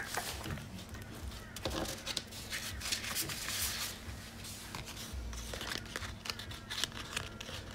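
Sticker sheets and their plastic sleeves rustling and crinkling as they are leafed through and handled, with scattered light clicks and taps.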